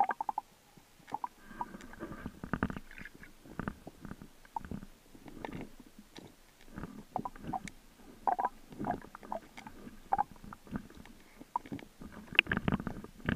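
Muffled underwater gurgling and rumbling with scattered irregular clicks and knocks, heard through a submerged camera in a river current, with a louder burst near the end.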